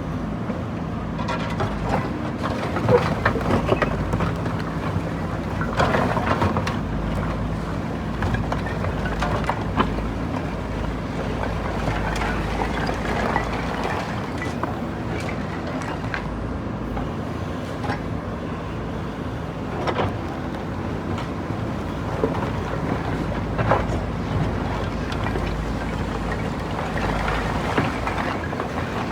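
JCB backhoe loader's diesel engine running steadily while it demolishes brickwork, with irregular knocks and clatters of breaking brick and rubble every few seconds.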